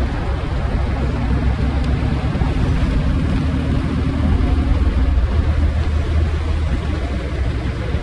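2002 Audi S4's twin-turbo V6 running as the car rolls along at low speed, a steady low rumble with road and wind noise, picked up from low on the car's side. It swells a little about halfway through.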